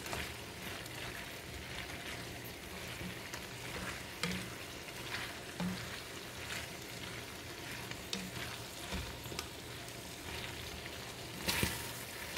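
Bowtie pasta in red sauce sizzling in a hot stainless steel skillet while a slotted spoon stirs it: a steady sizzle with short knocks and scrapes of the spoon against the pan every second or so, loudest near the end.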